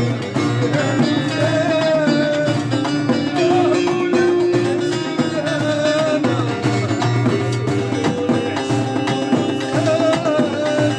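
Music in a Middle Eastern folk style: drums keeping a steady rhythm under a wavering melodic line that comes back every few seconds.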